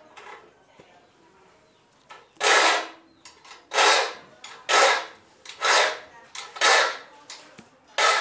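Steel file rasping across the teeth of a Peugeot rip saw clamped in a vise, sharpening it with two strokes per tooth. The first stroke comes about two seconds in, then they follow at about one a second, each lasting about half a second.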